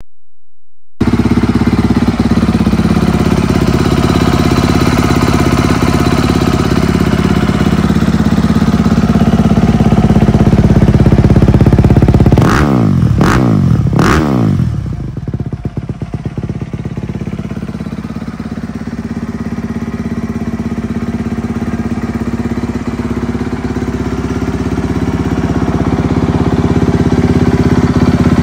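A 2025 Honda CRF250RX's single-cylinder four-stroke engine idling through a Pro Circuit Ti-6 titanium exhaust, with a tuned ECU. About halfway through the throttle is blipped three times in quick succession, each rev rising and falling sharply. After the blips the engine sounds quieter for a few seconds, then settles back to a steady idle.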